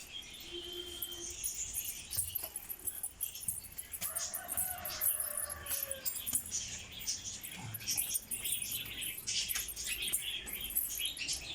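Pet lovebirds chattering: a dense run of rapid, high-pitched chirps and squeaks.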